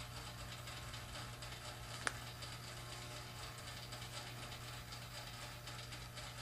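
Faint room noise: a steady low hum with a fine, dry ticking texture, and one sharp click about two seconds in.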